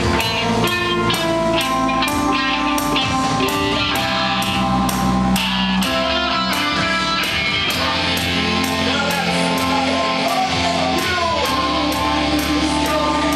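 Live band playing guitar and drum kit, with a cymbal keeping a fast, steady beat.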